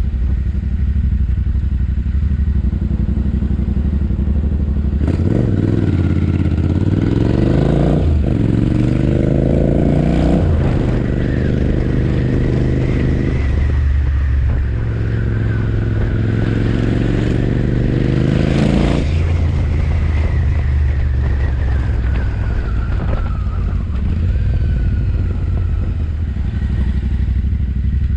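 Royal Enfield Interceptor 650's parallel-twin engine through a JVK aftermarket exhaust, ridden. It runs steadily at first, then from about five seconds in accelerates through the gears, its pitch rising and dropping back at each shift. The throttle eases off a little before twenty seconds and it runs on at a lower pitch.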